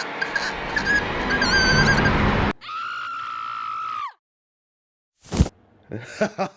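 Jump-scare sound effects: a swell of eerie noise builds and cuts off suddenly, then a held high tone drops in pitch as it ends. After about a second of silence comes one sharp hit, and near the end a person starts to laugh.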